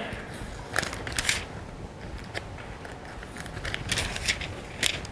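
Bible pages rustling as they are handled and turned, in several short crisp bursts.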